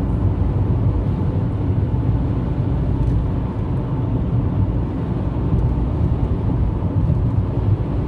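Steady low rumble of road and engine noise inside a car's cabin while driving.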